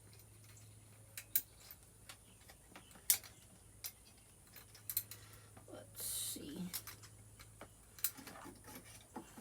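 Scattered light clicks and taps of small parts and hand tools being handled while a carburetor is fitted to a dirt bike, with a short rustle about six seconds in.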